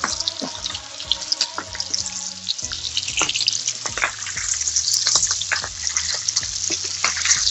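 Strip loin steaks frying in hot butter and oil in a pan, a steady sizzle full of small crackling pops.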